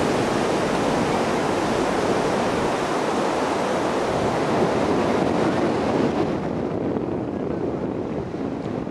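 Sea surf washing in over a flat sandy beach: a steady rush of breaking waves and foam, with some wind on the microphone. The hissing upper part of the sound drops away about six seconds in.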